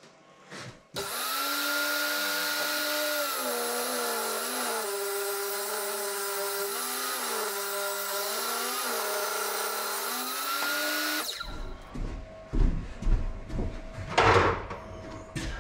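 Benchtop table saw starting about a second in and running, its pitch dipping several times as a length of timber is fed through the blade, then cutting off suddenly. After it come a few knocks and thumps of wood being handled.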